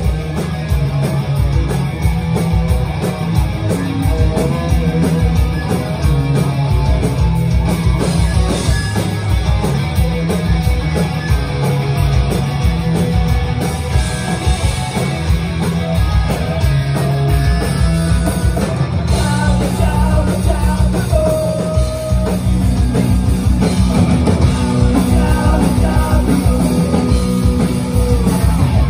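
Punk rock band playing live at full volume: electric guitars and bass over a steady, driving beat, with a singer.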